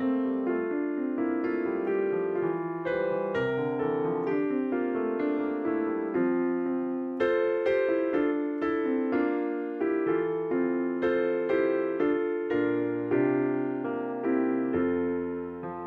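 Piano playing slow music in chords, each chord struck and left to fade before the next, with lower bass notes coming in near the end.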